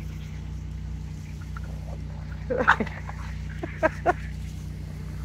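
Boston terrier puppies at rough play, giving a few short dog vocalisations: one about two and a half seconds in and two quick ones around four seconds. A steady low mechanical hum runs underneath.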